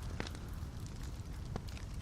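Wood fire burning in a fireplace: a steady low rumble of flames with scattered sharp crackles and pops from the logs, the clearest about a quarter second in.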